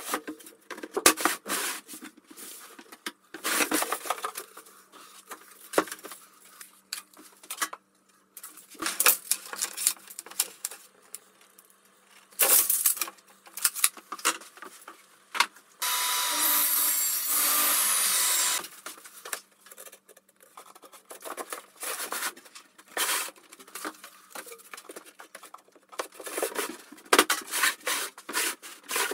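Woodworking handling noises: wooden panels knocked, rubbed and slid into place, with scattered clicks and thumps. Midway a bench power tool runs steadily for about three seconds.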